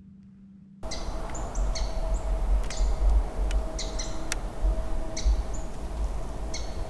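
After about a second of near silence, birds calling: short calls repeated every half second or so, with higher chip notes between them, over a low rumble.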